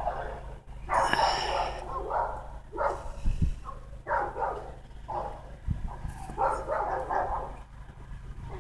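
Dogs fighting, a Cane Corso and a pit bull, snarling and barking in ragged, irregular bursts.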